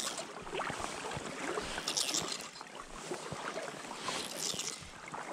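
Footsteps and rustling of someone moving on foot at the water's edge: irregular small knocks and scuffs with short bursts of hiss about two seconds in and again near the end.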